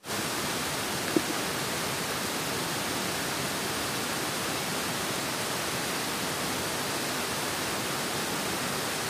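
Steady rushing noise of water flowing through a concrete dam or weir, even and unbroken, with one short click about a second in.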